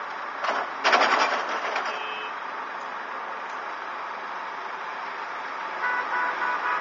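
Heavy earthmoving machinery running steadily, with a sudden loud, noisy burst lasting about a second, starting about half a second in. Near the end a reversing alarm beeps rapidly, about four short beeps a second.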